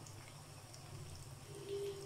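Battered chicken pieces deep-frying in oil in a wok on low heat, with a faint steady sizzle and bubbling.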